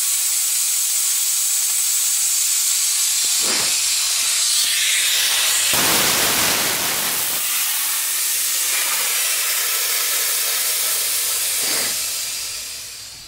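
Compressed air hissing out of the open drain valve of a Kobalt Quiet Tech air compressor's tank as the tank is drained. The steady hiss swells briefly around six seconds in, then dies away near the end as the pressure runs out.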